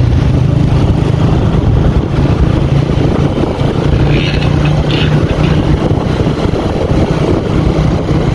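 Motorcycle engine running steadily under way, a constant low hum with road and air noise over it.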